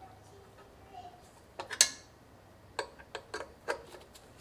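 Small metal clicks from a screwdriver tightening the Deepcool AK620 CPU cooler's mounting screws: one sharp click a little under two seconds in, then a quick run of about five clicks.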